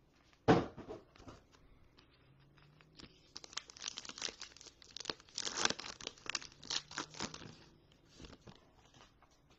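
Foil wrapper of a Phoenix football trading-card pack being torn open by hand. A sharp tap about half a second in, then a run of crackling rips and crinkles for several seconds, easing to lighter crinkling near the end.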